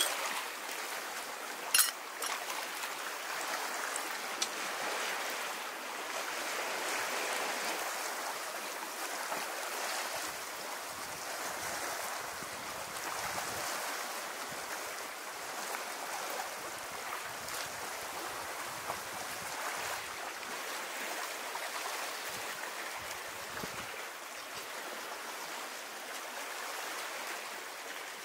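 Steady rush of sea water washing on the shore, swelling and easing slowly. Two sharp clicks come in the first two seconds.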